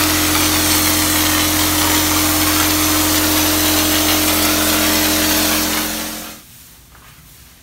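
Graco RTX 2500 texture sprayer running while spraying knockdown texture mud onto a ceiling: a steady machine hum under the loud hiss of air and mud leaving the spray gun. It cuts off suddenly about six seconds in.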